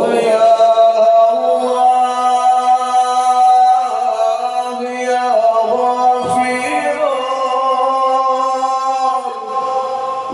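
A man singing an Acehnese qasidah solo, without instruments, in long held and ornamented notes broken by short breaths.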